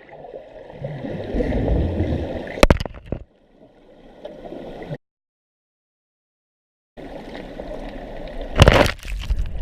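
Water gurgling and sloshing with a low rumble, broken by a couple of sharp knocks, one about a third of the way in and one near the end. A two-second stretch of dead silence sits in the middle.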